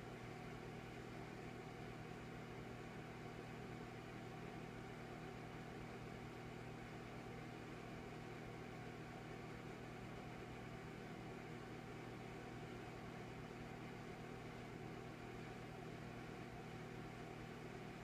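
Electric fireplace running: a faint, steady mechanical hum with a few even tones over a light hiss, with no crackle of real fire.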